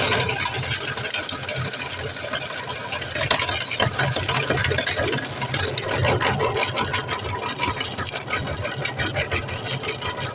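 Electric meat grinder running steadily, its motor humming under a dense crackling rattle as bubble gum is forced through the auger and plate.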